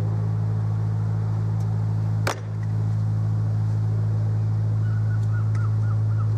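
A steady low mechanical hum, with one sharp knock a little over two seconds in and a short run of high chirps near the end.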